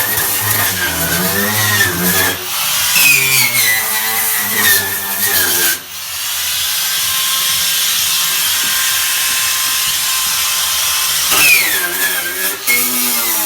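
A power tool working on car bodywork, its pitch wavering up and down as the load changes. About six seconds in it settles into a steady hiss with a faint constant tone, then wavers again near the end.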